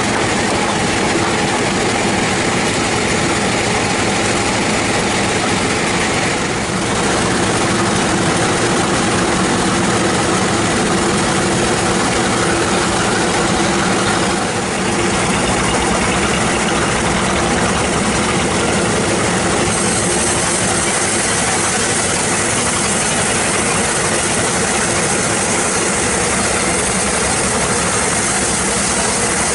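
Band sawmill running steadily, a loud continuous mechanical drone of its motor and drive. About two-thirds of the way through a faint high whine joins it.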